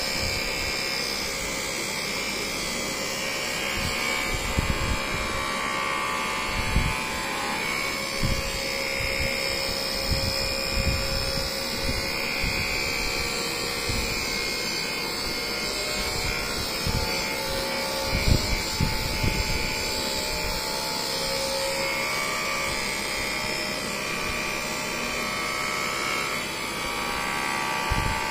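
Corded handheld electric massager running against a patient's back: a steady motor hum with irregular low thumps as the head is pressed and moved over the body.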